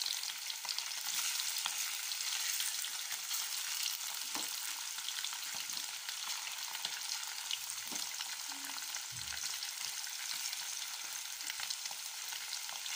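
Marinated sardine pieces sizzling in hot coconut oil in a shallow pan: a steady high hiss with scattered crackles as more pieces are dropped in by hand.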